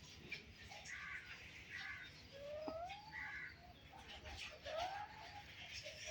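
Pet parrots giving soft short chirps, with two whistled calls that rise and then fall in pitch.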